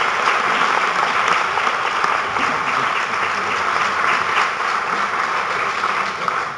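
Audience applauding, a dense, steady clapping that starts to die down at the very end.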